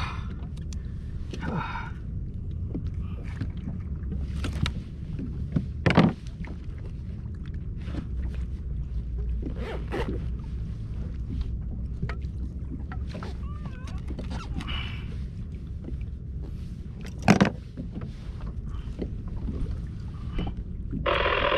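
Scattered knocks and clicks of gear being handled on a plastic fishing kayak, over a steady low rumble of wind and water. Two louder knocks stand out, about six seconds in and near seventeen seconds.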